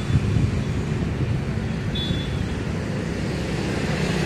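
Road traffic on a busy city street: a steady rumble of passing vehicles, with a short high beep about two seconds in.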